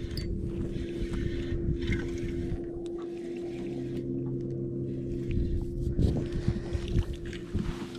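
A boat motor hums steadily, with scattered short knocks and rustles on top.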